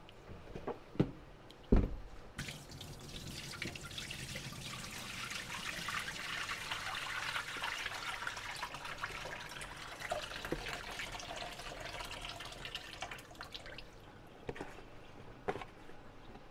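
Water pouring and splashing from a tilted plastic tub into a stainless steel sink as rinsed zucchini slices are drained, running for about ten seconds and then tailing off. Two sharp knocks come just before the pour, with a few small clicks near the end.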